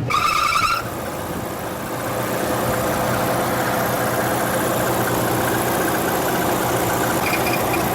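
Car engine running with the alternator's drive belt squealing: a loud, high-pitched squeal for under a second at the start, then a faint chirp near the end. The belt is slipping on its pulleys. The engine runs steadily in between.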